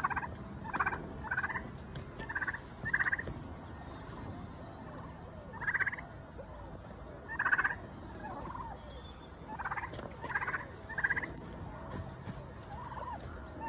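A domestic turkey tom gobbling again and again: about ten short rattling gobbles, some in quick pairs or threes, with pauses between.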